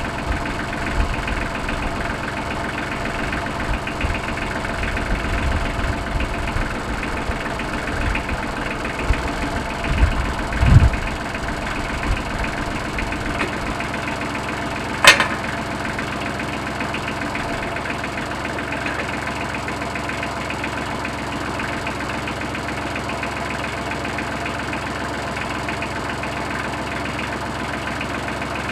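Tractor engine idling steadily, with irregular low thumps in the first half and one sharp click about fifteen seconds in.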